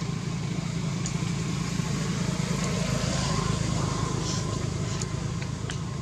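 Steady low motor hum, even throughout, with a few faint clicks.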